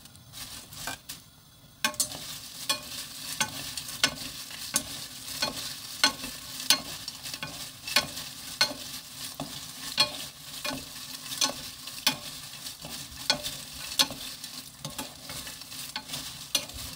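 Flour-coated dried chili pepper chips (gochu bugak) frying in oil in a preheated nonstick pan, stirred and tossed with two wooden spatulas: a steady sizzle with a scraping stroke about every two-thirds of a second, starting about two seconds in.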